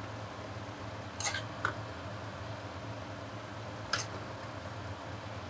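Three short clinks of kitchen utensils against dishes, about a second in, shortly after, and near four seconds in, over a steady low hum.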